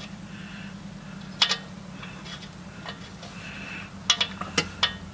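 Sharp light metallic clicks and clinks from hands working an O2 sensor and its wire loose beside the exhaust pipe: one about a second and a half in, then four in quick succession near the end, over a low steady hum.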